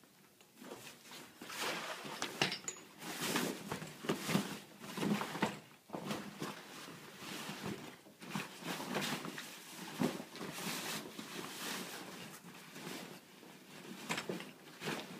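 A folding kayak's fabric hull skin rustling and scraping as it is pulled and worked over its tubular frame, with irregular knocks from the frame parts.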